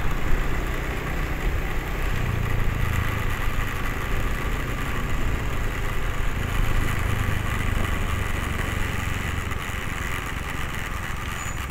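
Engine of the vehicle being ridden, running steadily at low road speed, with wind rumbling on the microphone.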